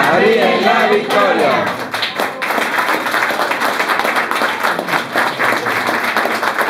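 A few voices singing for about the first second and a half, then a small audience clapping and applauding.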